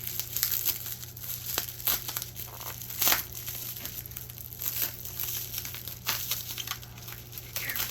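Bubble wrap and plastic packaging crinkling and rustling in irregular bursts as it is handled and pulled open, with one sharper crackle about three seconds in.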